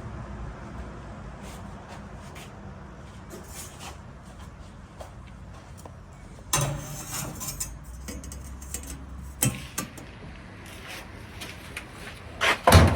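Scattered clicks, clanks and knocks of a dryer's sheet-metal panels and parts being handled and fitted back on, over a steady low hum. The loudest is a sharp knock near the end.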